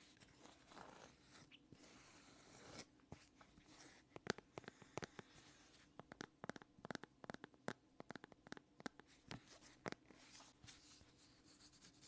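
Fingers tapping and scratching on plastic phone cases held close to the microphone. Soft rubbing for the first few seconds gives way to quick, irregular taps, several a second, with the taps thinning out near the end.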